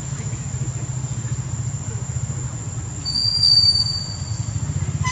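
A steady low motor rumble, pulsing rapidly like an engine idling, under a constant high insect drone. A single high whistle lasts about a second and a half, starting about three seconds in.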